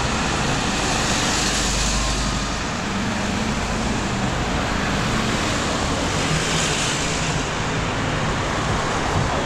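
Steady road traffic passing close by on a city street: cars, a taxi and a van, with the tyre and engine rush swelling as vehicles go past about a second in and again near seven seconds.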